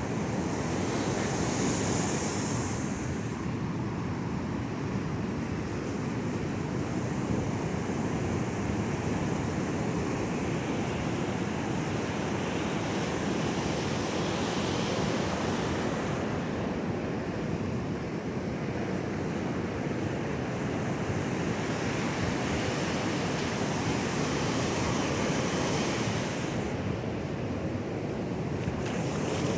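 Pacific Ocean surf breaking and washing up the beach, a steady rush whose hiss swells for a few seconds at a time, with wind buffeting the microphone.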